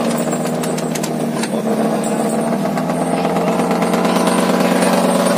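Fishing trawler's engine running steadily while towing the trawl net, with a few light clicks and knocks in the first second or so.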